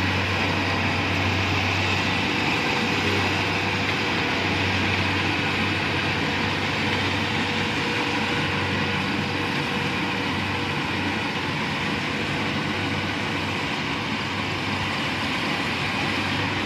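Rice combine harvester running steadily: a deep, even engine hum under a dense mechanical whir.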